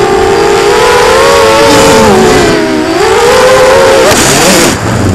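Quadrysteria Mini Mamba V2 racing quadcopter's motors and propellers, a loud whine that rises and falls in pitch with the throttle as it flies the course, dipping about two seconds in and breaking up near the end.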